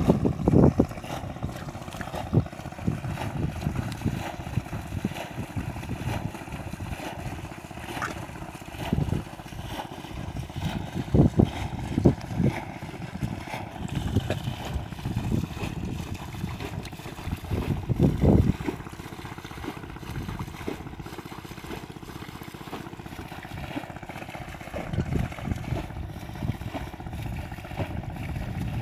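Wind buffeting the microphone in a low, uneven rumble, with irregular sloshing and squelching as hands grope through shallow muddy water; the loudest bursts come about 11, 12 and 18 seconds in.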